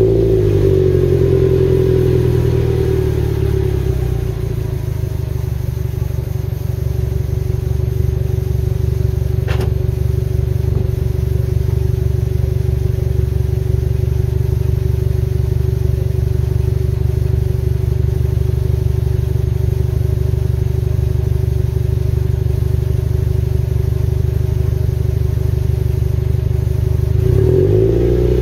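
Subaru Impreza WRX STI (GDB) turbocharged 2.0-litre flat-four idling steadily through an APEX N1 Evolution rear muffler, heard at the tailpipe. It settles to idle in the first second, and the revs begin to rise near the end.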